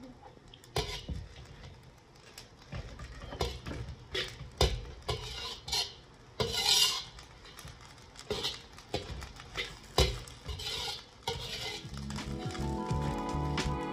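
Slotted metal spoon scraping and clanking against a steel wok as fried rice is stirred and tossed, in irregular strokes. Music fades in near the end.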